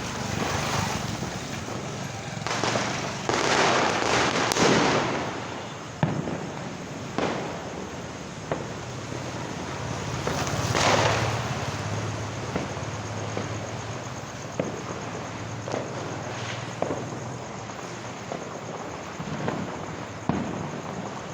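Diwali firecrackers and fireworks going off: scattered sharp bangs at uneven intervals, some close and some distant. There are two longer, louder stretches of noise, one early and one about halfway through.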